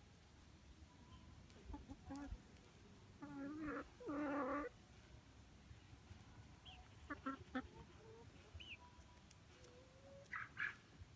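Domestic hens clucking and calling: two louder drawn-out calls about three to four and a half seconds in, then a few short clucks and a brief higher call near the end.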